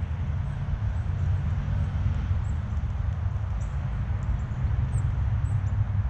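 Low, fluttering rumble of wind buffeting the microphone, with short high chirps from small birds scattered throughout.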